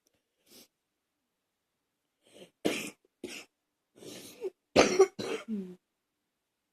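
A person coughing: one faint cough about half a second in, then a fit of about seven coughs in quick succession from about two and a half seconds in, the loudest near five seconds.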